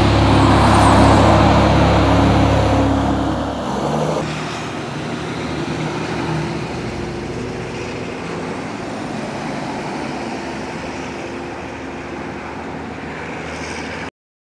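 Mack semi truck's diesel engine pulling a loaded lowboy trailer away on a highway, a loud low drone for about the first four seconds, then fading into steady highway traffic noise that cuts off suddenly near the end.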